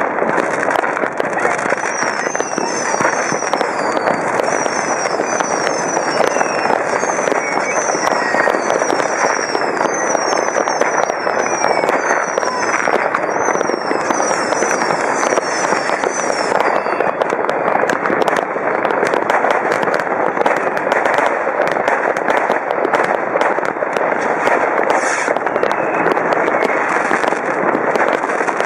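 Dense, unbroken crackle of city-wide fireworks: countless firecrackers and rocket bangs going off without pause. Short high falling whistles repeat over and over through the first half.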